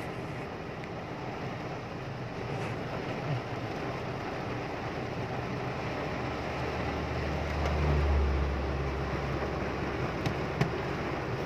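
Heavy rain on a car's windshield and body, heard from inside the moving car along with its road noise. A deep low rumble swells about six seconds in, peaks a couple of seconds later and fades.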